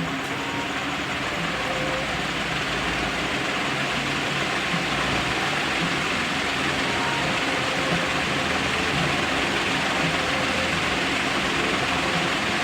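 Usha Racer Chrome 1200 mm ceiling fan running at high speed: a steady rush of air from the blades, swelling slightly over the first few seconds and then holding even.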